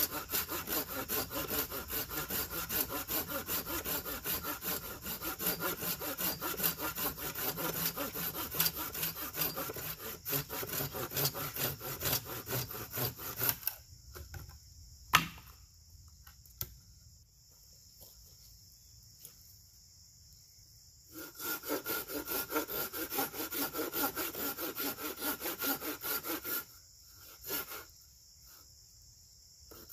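Hand saw cutting firewood with quick back-and-forth strokes, about two to three a second. The sawing pauses for several seconds midway, with one sharp knock in the gap, then resumes and stops shortly before the end.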